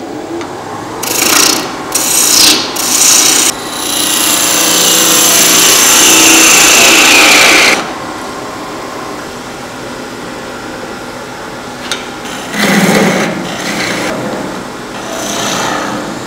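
Wood lathe running while a turning gouge cuts the spinning wooden workpiece, truing and facing its end. There are a few short cuts, then one long steady cut of about four seconds, then only the lathe running before more short cuts near the end.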